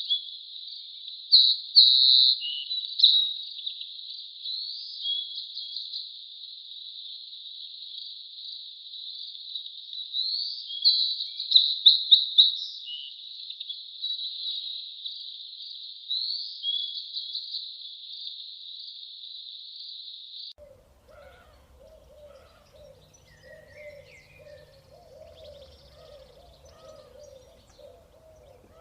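Birds chirping and singing in a busy, high-pitched chorus with several loud bursts of song. About two-thirds of the way through it cuts off abruptly to a much quieter scene with low, repeated bird calls.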